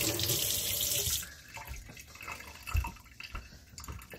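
Kitchen tap running into the sink, shut off about a second in; then soft handling sounds on the counter with one low thump near the middle.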